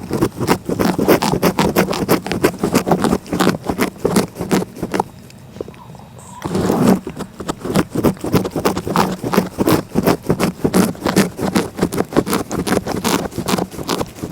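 Cat licking close to the microphone: quick rasping strokes of the tongue, several a second, with a short pause about five seconds in before the licking resumes.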